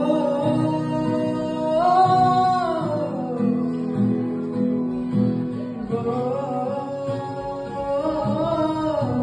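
A man sings long held notes over strummed acoustic guitar chords; the melody climbs about two seconds in, falls away, and climbs again near the end.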